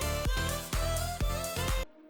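Background music with a steady beat and a pitched melody, cutting off abruptly near the end.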